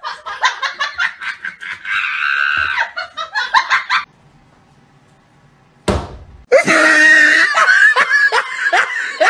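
Human laughter in quick, hard bursts. It breaks off for about two seconds near the middle, then comes back loud and high-pitched.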